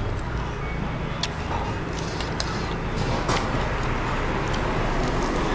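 Steady low rumble of road traffic, growing stronger near the end, with a few light clicks of a metal spoon against a noodle bowl.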